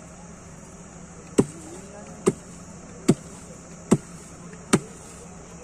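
A heavy hand-held object struck down against the ground again and again: five dull thuds, evenly spaced a little under a second apart.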